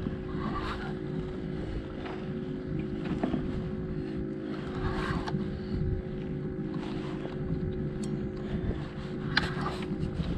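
Steady hum of a boat motor, with light wind on the microphone and scattered rustles and clicks from a rod and reel being worked to bring in a hooked fish.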